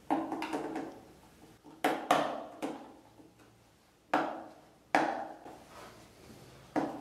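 Small screwdriver tightening a terminal screw on a 10 amp solar charge controller to clamp a wire: several sharp clicks and knocks of the driver and plastic case, spread unevenly with quiet between them.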